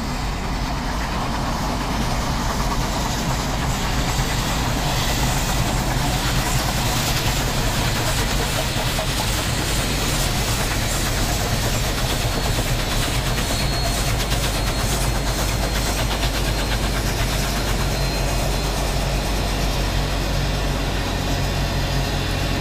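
Union Pacific steam special led by Big Boy 4014 working past at the summit: a steady, dense rush of locomotive exhaust and running noise, with a constant low hum underneath.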